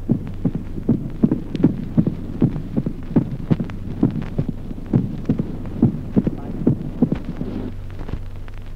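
Recorded heart sounds with a mitral opening snap at a short interval in sinus rhythm: each regular beat is a group of close clicks, the second sound followed almost at once by the snap. This is typical of mitral stenosis. A steady low hum runs underneath, and the beats stop near the end.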